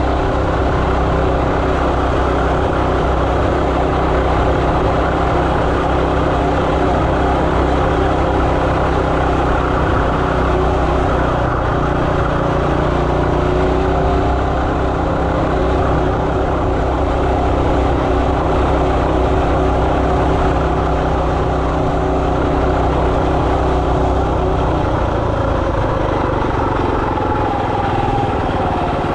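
Coleman RT200 minibike's 196cc single-cylinder four-stroke engine running steadily under way. Near the end its note drops as it slows.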